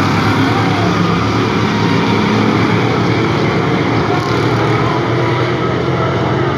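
A pack of hobby stock race cars running laps, their engines loud and steady as the field goes around the track.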